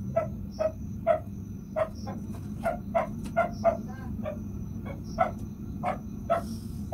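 Repeated short animal calls, about two a second, uneven in spacing, over a steady low hum.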